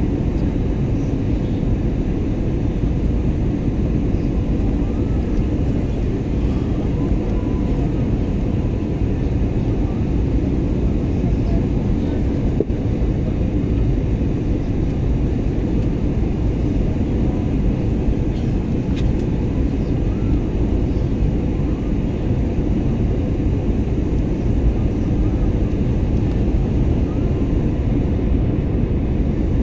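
Steady cabin noise of an airliner in flight: a low, even rumble of the engines and rushing air heard inside the cabin.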